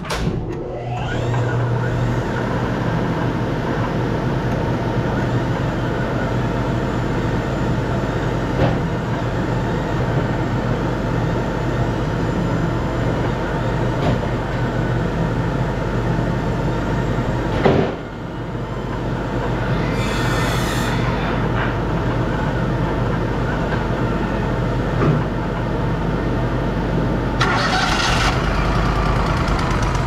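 Wood-Mizer LT35 sawmill's engine starting up and then running steadily as its hydraulics turn the log over. Two brief hissing bursts sound about 20 and 28 seconds in.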